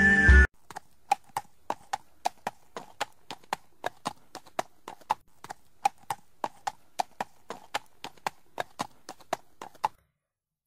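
Hollow clip-clop footfalls, about three a second, each a sharp knock with a short ring; they stop suddenly near the end.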